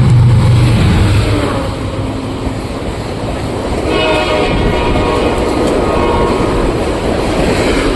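General Electric diesel locomotive and Talgo coaches passing at speed. The engine drone is strong at first, then gives way to the rumble of the coaches on the rails. A multi-tone train horn sounds about four seconds in and holds for about three seconds.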